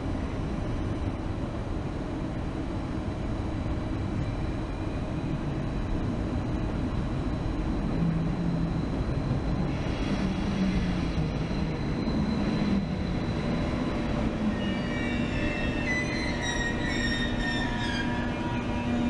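ICE 3 high-speed electric train (class 403) rolling slowly into the platform with a steady rumble. In the last few seconds a high brake squeal falls in pitch as it slows.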